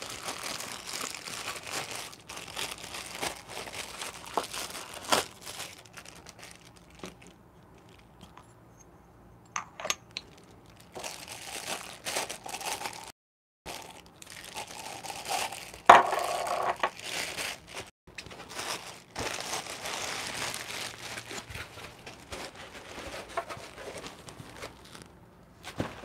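Clear plastic packaging bags crinkling and rustling in irregular bursts as grinder parts are unwrapped, with a few sharper clicks in between.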